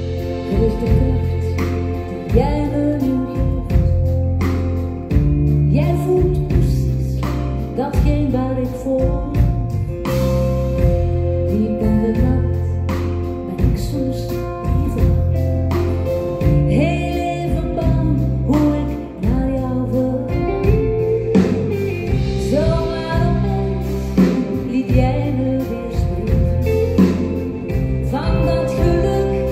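A woman singing a Dutch pop ballad live into a microphone, backed by a band with bass, acoustic guitar and drums, amplified through a concert PA.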